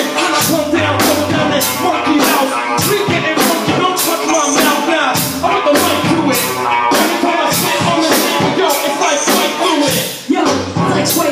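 Hip hop instrumental beat with a steady drum pattern and a low bass line, dipping briefly about ten seconds in.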